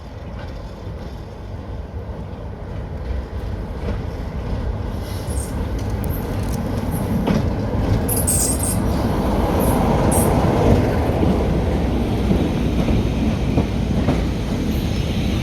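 Diesel train approaching and passing on a heritage line: a low engine and wheel rumble that grows steadily louder, with brief high squeals about eight to ten seconds in.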